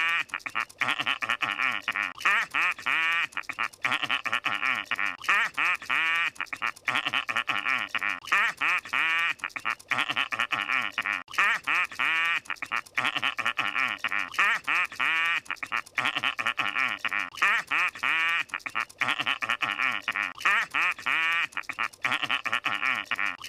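The cartoon laugh of Squidward Tentacles from SpongeBob SquarePants, played again and again as a loop of short laughing bursts.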